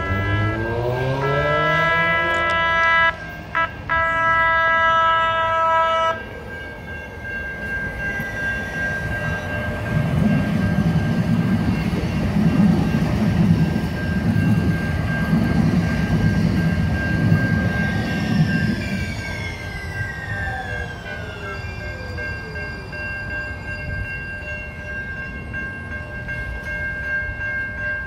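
San Diego Trolley light-rail train sounding its horn over the first six seconds, the blast broken twice briefly. The train then passes close with a rumble of wheels on rail, and its motor whine falls away near the end. A level-crossing warning bell rings steadily throughout.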